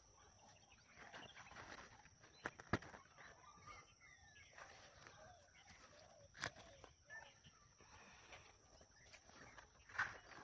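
Faint rustling of dry straw mulch and cucumber leaves as a hand picks cucumbers off the vine, with a few sharp clicks, two close together about two and a half seconds in and others near six and a half and ten seconds. Faint animal calls sound in the background.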